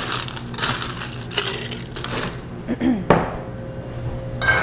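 Ice cubes being dropped into a cocktail shaker glass, clattering and clinking in several short bursts, then a single sharp knock about three seconds in.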